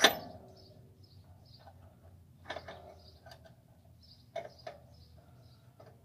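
A sharp metallic clack with a short ring, then a few lighter clicks and taps from hands handling metal fittings and wiring on an RV water heater.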